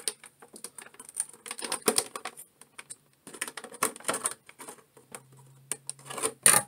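Clear plastic blister packaging being handled and flexed, crackling and clicking irregularly, with one louder crack near the end.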